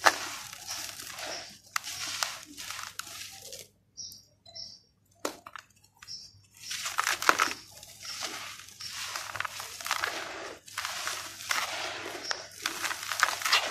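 Dry red dirt crunching and crumbling between bare hands, gritty soil pouring and sifting into a plastic basin of loose dry dirt, in repeated bursts. A pause of about two seconds comes a little under four seconds in, and dense crunching resumes after about six seconds.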